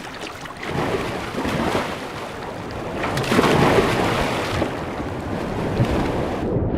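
River water rushing and churning, growing louder about halfway through.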